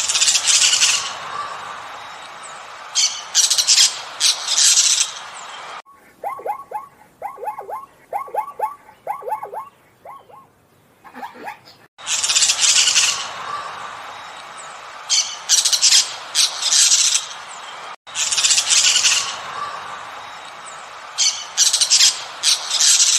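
Birds calling: loud, high-pitched chirping over background noise comes in repeated passages, the same clip three times. In between comes a run of about a dozen short, quick calls in a lower pitch.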